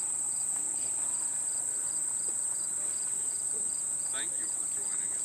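Insects in the roadside grass trilling: a steady high-pitched drone with a fainter chirp repeating about three times a second.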